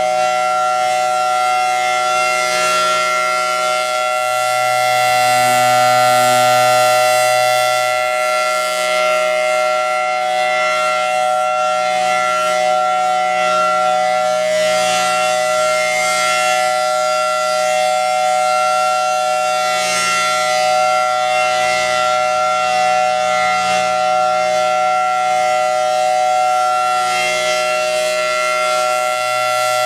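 Federal Signal Thunderbolt 1000T tornado siren sounding the steady alert signal, a loud sustained tone held at a constant pitch.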